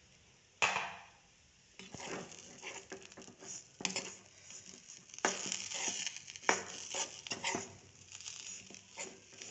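Spatula stirring a dry cabbage, onion and soya-chunk filling around a wok, with irregular scraping strokes and clicks against the pan. A single sharp knock comes about half a second in, then the stirring starts about two seconds in.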